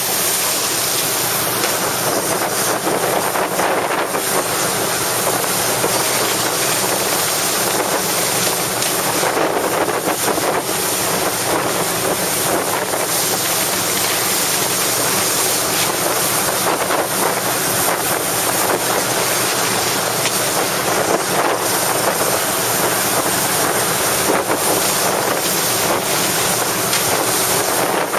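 Strong wind buffeting the microphone: a loud, steady rush of noise that swells a little now and then.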